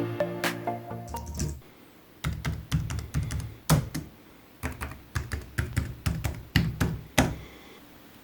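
Background music fades out, then someone types on a thin-profile Seenda IWG-WJK67 full-size keyboard: irregular runs of key clicks with a few louder strokes.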